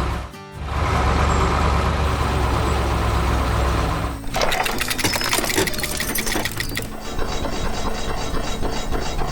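A heavy construction machine's diesel engine running steadily as a cartoon sound effect, dropping out briefly near the start. About four seconds in it gives way to mechanical clattering and rattling, with a fast even ticking toward the end.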